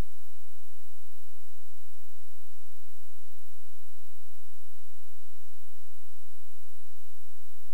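Steady electrical hum on an audio feed: a low drone with a steadier, higher tone above it and fainter thin tones higher still, unchanging.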